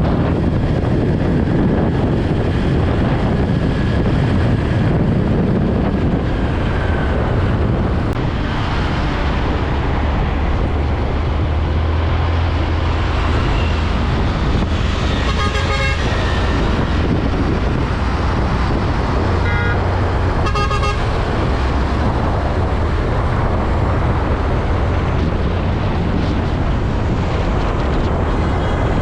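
Heavy container trucks and street traffic running past, a steady low engine rumble with road noise. A horn honks about halfway through, and two more short honks follow a few seconds later.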